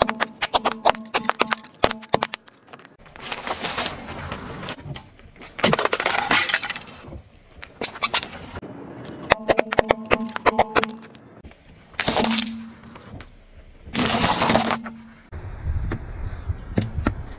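A car tyre rolling over and crushing plastic objects on asphalt: rapid sharp cracks and snaps of plastic spoons breaking, then several separate stretches of crunching. About twelve seconds in comes a brief high squeak, and near the end a low rumble.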